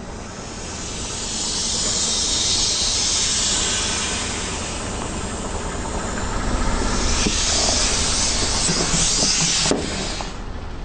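Air hissing out of inflatable vinyl toys squashed under a slowly rolling car tyre. The hiss swells twice and cuts off suddenly with a click near the end, over the low rumble of the car.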